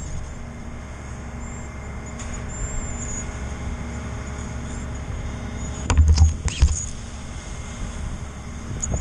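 Steady wind noise on the camera's microphone, with a few loud low thumps about six seconds in.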